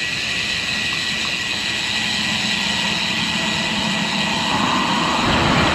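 Steady wind and rolling noise from a road bike ridden over paving, heard on a handlebar-mounted camera, with a low rumble building near the end.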